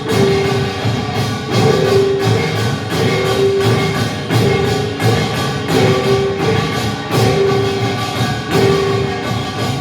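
Live music with a steady beat and percussion, a held note returning about once a second.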